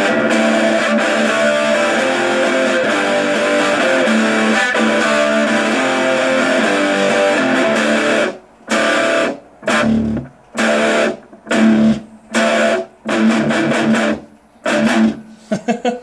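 Electric guitar played through a small homemade amplifier built into an ammo can and powered by a 9-volt battery. It plays dense, sustained chords for about the first half, then a run of short chords, each cut off sharply, with brief silences between them.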